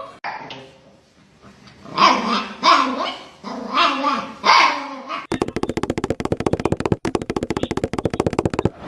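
A dog vocalizing in a series of about five short pitched calls that bend up and down, followed by a fast, even pulsing sound for the last three or so seconds.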